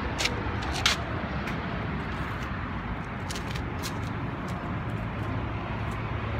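Steady low rumble of outdoor background noise, with a few light clicks and taps.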